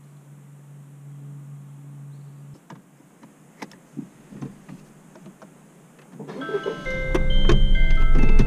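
A steady low hum that cuts off about two and a half seconds in, then a few light clicks and knocks. Near the end, background music with chiming mallet-percussion tones starts suddenly and is the loudest sound.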